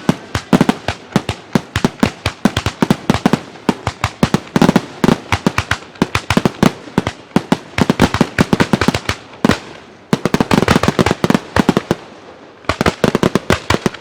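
Fireworks shells bursting overhead in a rapid, dense barrage, several sharp bangs a second. There is a short lull about twelve seconds in, then the bursts resume.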